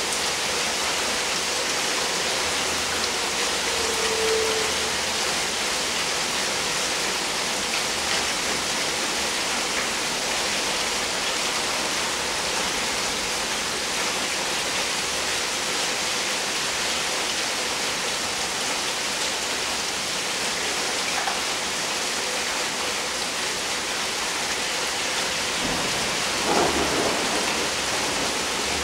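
Steady rain falling and splashing on surfaces, with low thunder rumbling in the background, swelling most clearly near the end.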